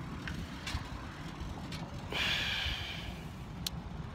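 Wind rumbling on a phone microphone while riding a bicycle, with road noise. A hiss lasting about a second comes about two seconds in, and a single sharp click near the end.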